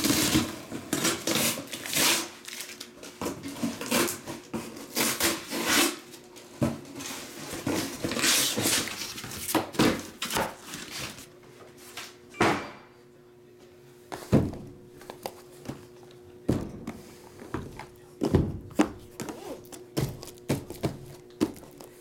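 Sealed cardboard trading-card boxes being handled and set down on a table: a run of rustles, knocks and thuds, busy in the first half and sparser after about halfway.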